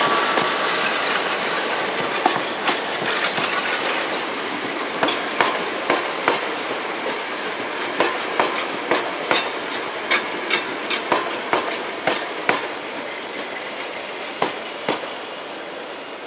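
Electric multiple-unit passenger train rolling away over the station's points and rail joints: a steady rumble that slowly fades, with irregular sharp wheel clicks several times a second from about two seconds in, thinning out near the end.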